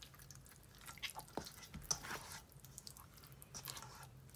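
Hands squishing and rubbing a wet chermoula spice paste into a whole fish in a stainless steel bowl: faint, irregular squelching and crackling, with one sharper click about two seconds in.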